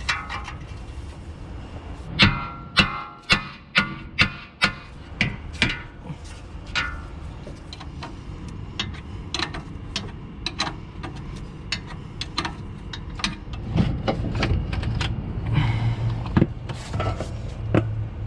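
Sharp, irregular metal-on-metal blows, some of them ringing, like hammering on the BMW X5's front suspension parts. A steady low hum comes in near the end.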